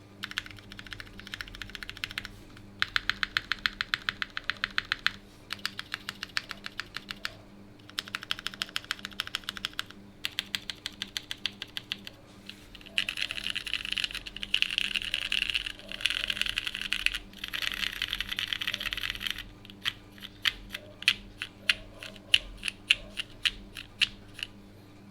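Monokei Kage mechanical keyboard with lubed, pre-retooled Cherry MX Black linear switches, a polycarbonate plate and GMK keycaps, typed on in fast runs of keystrokes with short pauses between them. Near the end the keys are pressed singly and more slowly.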